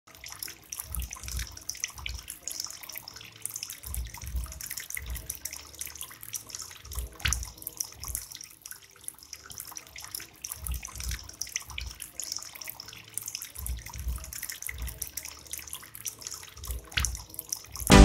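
Small bamboo tabletop fountain running: water pouring from a bamboo spout and splashing into a shallow basin of pebbles, a steady trickle and splash with soft low thuds about every second.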